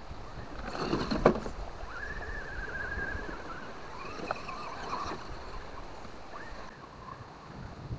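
RC crawler truck's electric motor and drivetrain whining, the pitch wavering up and down as it crawls over rock, with a sharp knock about a second in.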